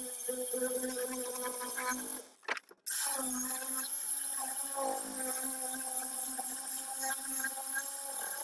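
Battery-powered angle grinder running as it grinds out the inside of a wooden mug blank, a steady motor whine with a hiss. It cuts out briefly a couple of seconds in, then starts again and keeps running.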